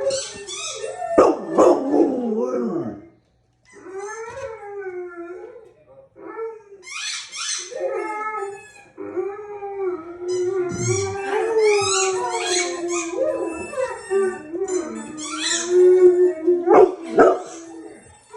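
Dog howling in long, wavering held notes, mixed with short high yips, with a short break about three seconds in.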